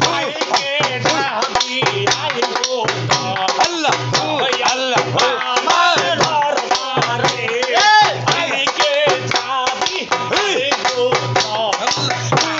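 Bengali boitoki folk song performed live: men singing in a group over a hand-played two-headed barrel drum (dhol) keeping a steady beat, with hand clapping in time.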